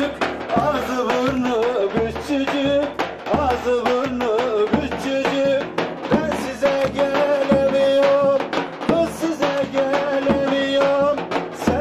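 Turkish folk music for dancing: a davul drum beating steadily under a wavering, ornamented melody, with long held notes.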